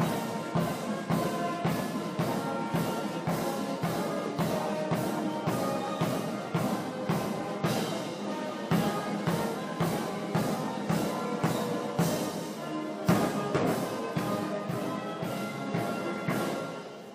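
Military regimental band playing music on brass and drums, with an even drum beat of about two strokes a second under sustained brass chords. The sound dies away at the very end.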